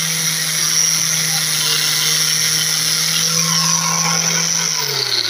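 Electric angle grinder with a threaded wire brush attachment running at full speed with a steady high whine while the brush scrubs the surface. Near the end the motor is switched off and winds down, its pitch falling.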